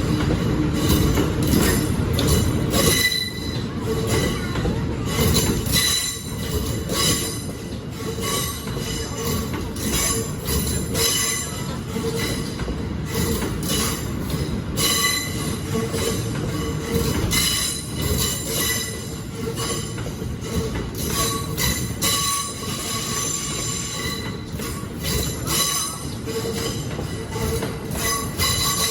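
Cassiopeia excursion train hauled by electric locomotive EF64-1052, rolling slowly out of the station with a steady high squeal from its steel wheels and repeated clicks over a low rumble. The rumble is heavier for the first three seconds, then eases.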